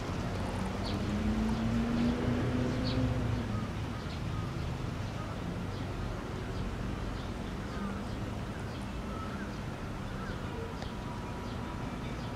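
Steady outdoor background noise, a low rumble, with faint short bird chirps about once a second and a faint low hum in the first few seconds.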